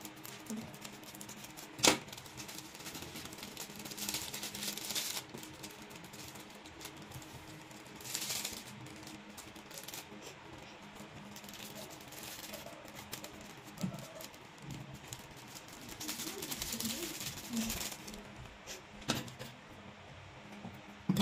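A sharp snip of scissors about two seconds in, then several short stretches of soft rustling and hissing as foil seasoning sachets are handled and shaken out, spilling seasoning powder and fried-garlic flakes onto a plate of instant noodles.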